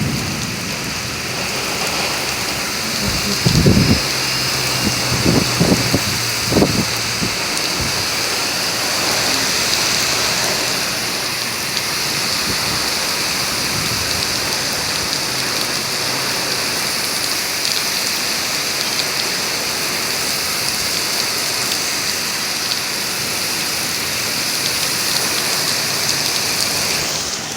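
Heavy rain pouring steadily in a windy thunderstorm, with a few brief low thumps in the first several seconds.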